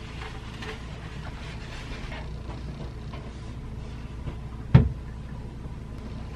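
Small water tank lid being handled and set into its opening in a fiberglass hull, with faint light knocks and one solid thump about three-quarters of the way through as it seats, over a steady low hum.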